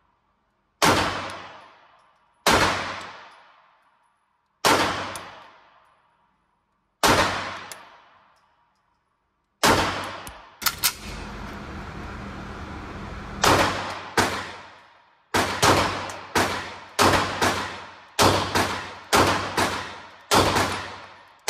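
Pistol shots from a ported or compensated 9mm competition handgun on an indoor range, each sharp crack followed by a long echoing decay. First come five slow, evenly spaced shots about two seconds apart. After a few seconds of steady noise comes a faster string of about a dozen shots, roughly two a second.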